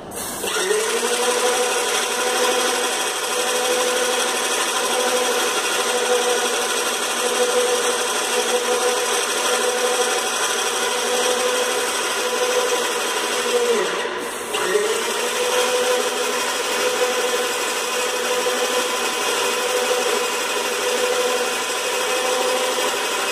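Cetec SM10 airless paint sprayer's 750 W electric motor and pump running under load, a steady whine that wavers regularly, over the hiss of paint leaving the spray gun. It dips briefly and picks up again about two-thirds of the way through.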